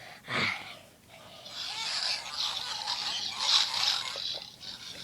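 A person's voice making pig-like noises: a short falling sound about half a second in, then a few seconds of rough, noisy squealing.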